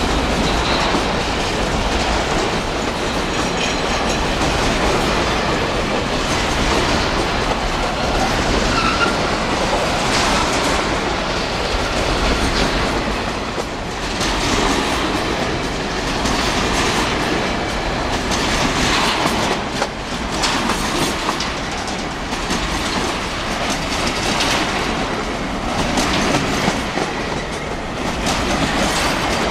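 Empty freight train of hopper wagons rolling past close by: steel wheels clattering over the rail joints over a steady rumble, with a few brief faint wheel squeals.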